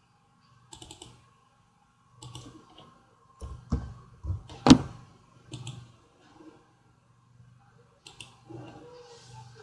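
Scattered clicks and keystrokes from a computer mouse and keyboard, irregularly spaced, with one louder sharp knock a little under five seconds in.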